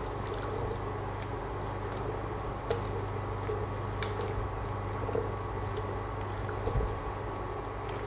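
Silicone spatula stirring and tossing cubed potatoes in a pressure cooker to coat them in a chili-water mix: soft wet squishing, with a few light clicks of the spatula against the pot, over a steady low hum.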